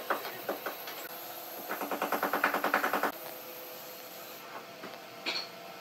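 A flat wooden stick dragged along a hardwood board's edge to spread glue. After a few light taps, it gives a quick, even, rattling rasp for about a second and a half.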